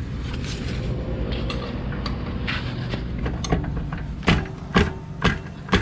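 Sharp metallic clicks about twice a second from a wrench being worked on a scooter's rear axle nut, starting about four seconds in after a stretch of steady handling noise.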